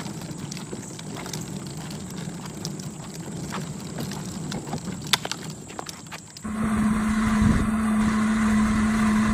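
Hard plastic wheels of a toy wagon rolling over a concrete sidewalk, a steady rattle with scattered clicks. About two-thirds in it gives way to the louder, steady hum of a children's electric ride-on toy jeep's motor running.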